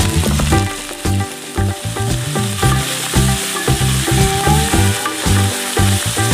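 Chopped celery, onion and garlic sizzling in hot oil in an aluminium wok, stirred with a wooden spatula that scrapes and knocks across the pan. Background music plays underneath.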